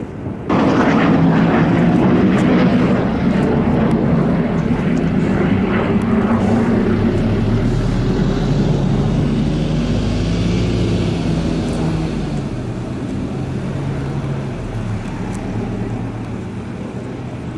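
Kawasaki T-4 jet trainers' turbofan engines rumbling loudly as the jets fly their display. The sound comes in suddenly about half a second in and slowly fades toward the end.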